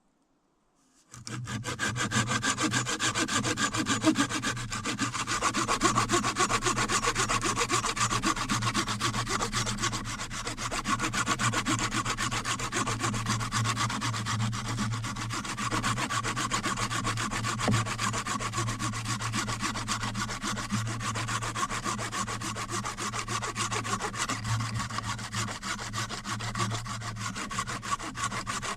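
A hand tool scraping wood in fast, even, unbroken strokes, starting about a second in.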